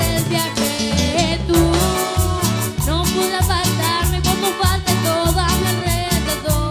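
Live amplified cumbia band playing: electric guitars and bass over a steady percussion beat, with a young woman singing lead into a handheld microphone.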